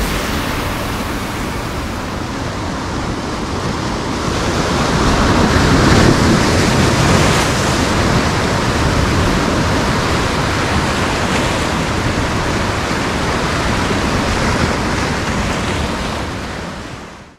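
Surf breaking on rocks: a continuous rush of churning water and spray. It swells louder around five to eight seconds in, then fades out at the end.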